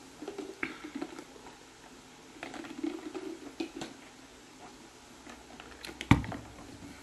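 Close-miked chewing with the mouth closed, wet squishing and small clicks in two short spells. A single sharp thump about six seconds in is the loudest sound.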